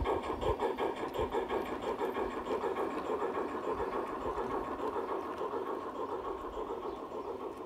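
LGB garden-railway model steam train and its freight wagons rolling past on the track: a steady, rapid rhythmic running sound that slowly fades as the train moves away.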